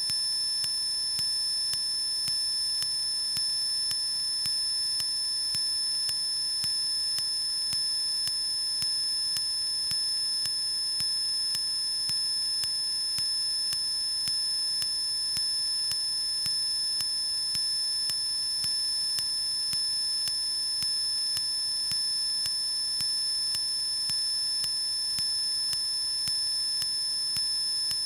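Steady high-pitched electronic whine made of several unchanging tones, with faint, evenly spaced ticking underneath: interference on the cockpit intercom audio feed. No engine or propeller sound comes through.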